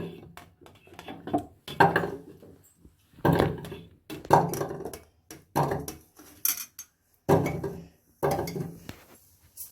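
Washed colocasia (taro root) corms dropped one at a time into a metal pressure cooker, each landing with a short knock against the pot, about eight in all, roughly a second apart.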